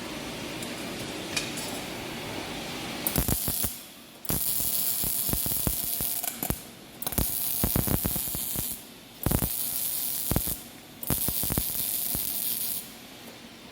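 Datyso MIG welder arc running in five short bursts of one to two seconds each: a hissing crackle of spatter that stops and restarts between beads, as trial welds are laid.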